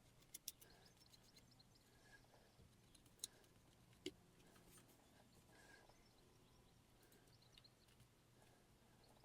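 Near silence: room tone with a few faint, short clicks and taps.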